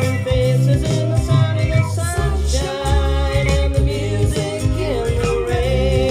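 A pop-rock song with a sung lead melody over steady bass and drums, played through a pair of Bang & Olufsen Beolab 17 active loudspeakers for a listening test.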